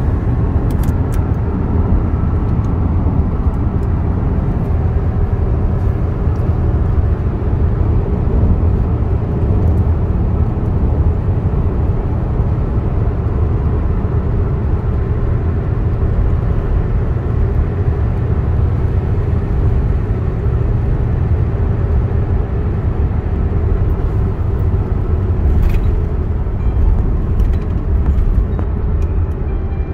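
Steady low road and engine noise of a car cruising on a highway, heard from inside the cabin.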